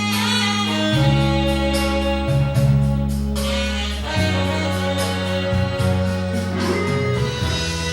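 Instrumental karaoke backing music with no voice: a melody line over sustained bass notes and chords, with regular cymbal-like strokes keeping the beat.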